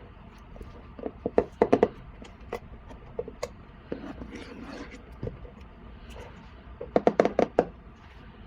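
Hands handling small toy boxes and packaging: quick runs of tapping and clicking, with a short rustle near the middle.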